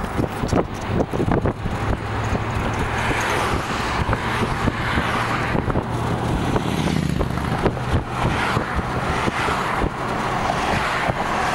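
Steady road and engine noise heard from inside a moving vehicle's cabin: a low hum under tyre and wind rush, with a few light knocks about a second in.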